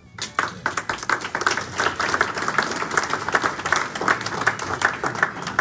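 A group of people applauding: many hands clapping in a dense, steady patter that starts suddenly right at the beginning.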